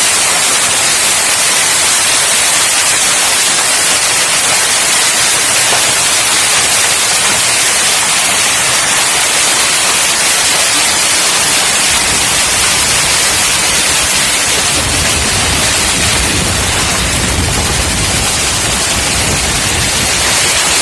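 Heavy rain with hail pouring down as a loud, steady hiss. From about twelve seconds in, a low rumble joins it.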